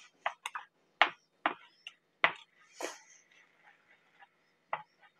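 A spoon knocking and clacking against the sides of a saucepan while stirring a thick chocolate fudge mixture: a string of sharp, irregular knocks.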